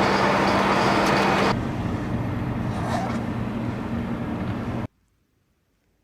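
Steady car road and engine noise with a constant hum. About a second and a half in it changes to a quieter, lower hum, and about five seconds in it cuts off abruptly.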